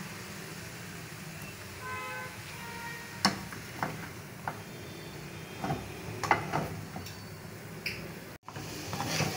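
A cooking utensil knocking and scraping in a karahi as sliced tomatoes are stirred into spiced frying chicken: scattered clinks and knocks over a steady low hum. The sound briefly cuts out near the end.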